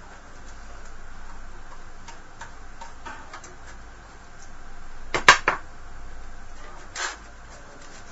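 Small metallic clicks and clinks from a desktop computer's metal case as its hard drive is worked loose and taken out, with a loud clatter about five seconds in and a smaller knock about two seconds later.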